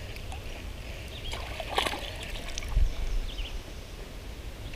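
A short splash and rustle about two seconds in as a hooked bluegill is brought to hand, over a low steady rumble, with faint bird chirps.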